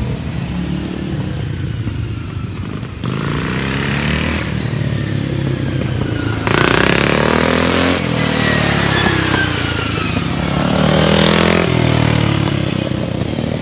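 Racing lawn mower engines running hard and revving, the pitch rising and falling as the mowers pass, with abrupt changes in loudness as the sound cuts from one stretch to another.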